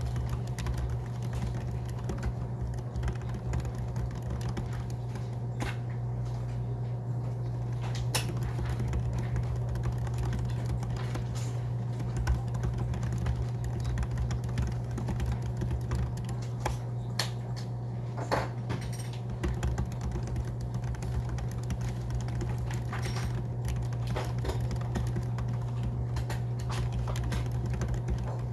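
Typing on a scissor-switch (pantograph) keyboard: scattered, irregular key clicks over a steady low hum.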